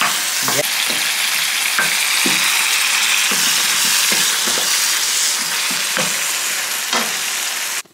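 Prawns and other food sizzling in hot oil in a frying pan: a steady loud sizzle, with scattered knocks and scrapes of cooking utensils against the pans. The sizzle cuts off suddenly near the end.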